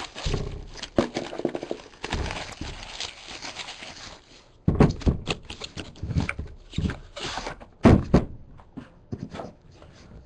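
A sealed trading-card box being unwrapped and handled: a few seconds of rustling and tearing of the wrapping, then a run of knocks and thunks as the box and its contents are handled.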